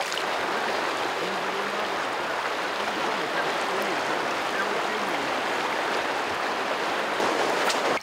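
Steady rushing of a shallow, fast-flowing river current.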